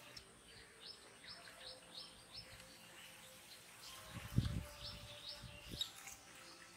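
Small birds chirping, a run of short high chirps repeating several times a second. About four seconds in comes a brief low rumble, the loudest sound, with a smaller one a little later.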